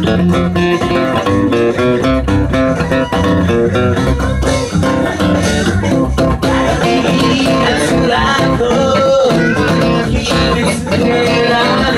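Steel-string acoustic guitar strummed hard in a blues rhythm, with a man singing over it from about halfway through.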